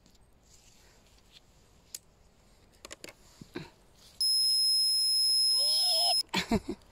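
A loud, steady, high-pitched electronic beep that switches on abruptly about four seconds in and cuts off two seconds later. A warbling call runs beneath it just before it stops.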